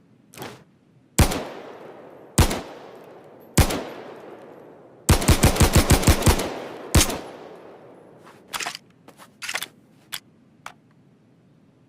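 Colt M1911 pistol gunshots: three single shots a little over a second apart, each with an echoing tail, then a rapid string of about ten shots at roughly seven a second, one more shot, and then a few fainter sharp metallic clicks.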